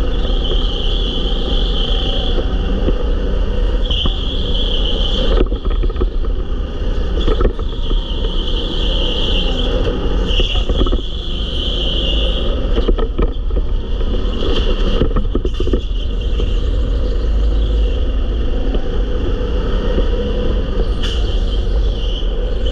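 Rental go-kart driven at speed around an indoor track, heard from on board: a steady motor and tyre rumble with a high whine that comes and goes. A few short knocks from the kart jolting over the track.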